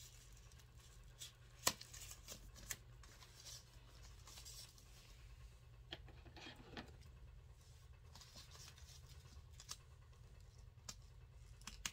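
Faint rustling and handling of packing material being pulled out of a new handbag and off its wrapped strap, with scattered small clicks and one sharp click about two seconds in, over a steady low hum.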